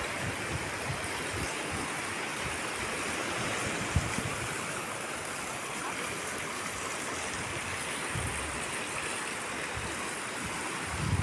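Ocean surf giving a steady, continuous rush of breaking and washing water, with a single short knock about four seconds in.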